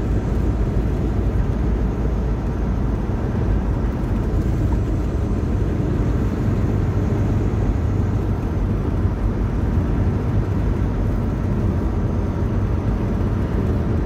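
Semi truck driving at a steady speed: a constant low engine and road drone, with no change in pitch.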